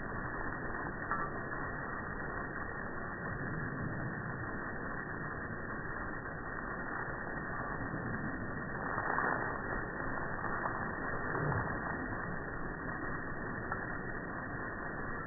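Garden hose spray hitting the lawn and a mastiff puppy splashing and snapping at the water jet, slowed down and pitched low by slow-motion playback: a steady dull rushing with a couple of slightly louder splashes, about nine and eleven and a half seconds in.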